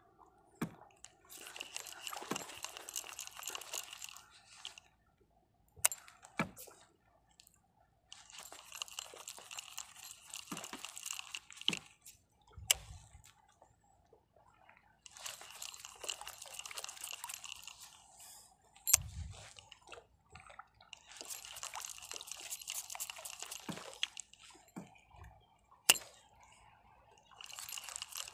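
Small spinning reel being cranked in spells of about three seconds, repeated every six or seven seconds, as a micro jig is worked back up through the water. A few sharp knocks fall in the pauses between spells.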